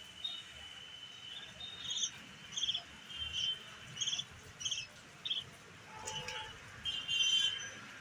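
Small young bird calling in a series of short, high chirps about every half second, with a longer chirp near the end; a thin steady high tone runs under the first two seconds.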